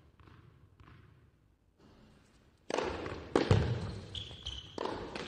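Tennis ball bounced faintly on a hard court a couple of times before the serve. About two and a half seconds in the serve is struck, followed by sharp racquet-on-ball hits of the rally and a short squeak.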